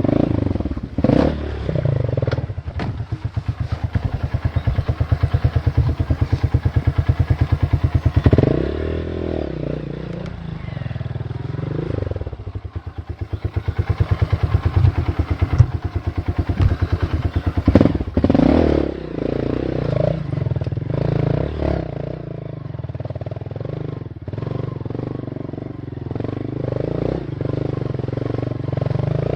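Single-cylinder four-stroke trail motorcycle engine pulling hard at low revs over rough ground, with a strong rhythmic chug and a couple of revving surges, mixed with clattering and knocks from the bike.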